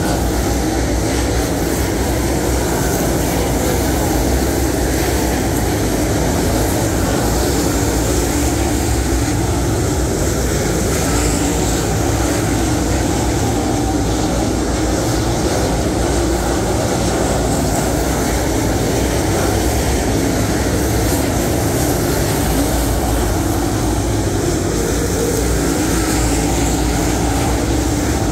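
A field of dirt late model race cars running at racing speed, their V8 engines blending into one steady, loud din.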